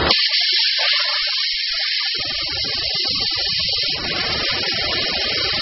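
OMAX abrasive waterjet starting its cut and piercing the plate: a loud hiss sets in suddenly, and a lower rushing noise joins about two seconds in and fills out about four seconds in.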